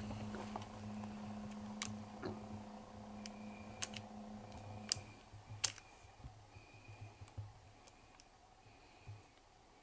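Sharp clicks and knocks of a rifle and gear being handled as it is raised. A low hum stops about halfway, and a faint short high note repeats about once a second in the second half.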